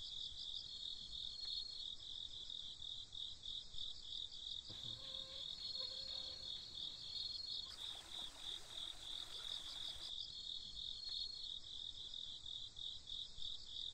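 Crickets chirping steadily in a night-time chorus of rapid, even high-pitched pulses. A soft hiss joins for a couple of seconds past the middle.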